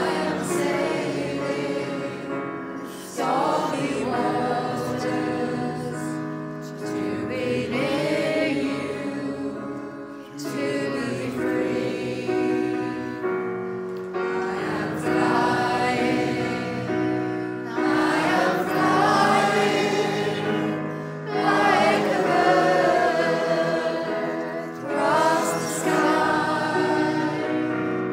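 A choir singing together in long held phrases a few seconds each, the loudness swelling and easing from phrase to phrase.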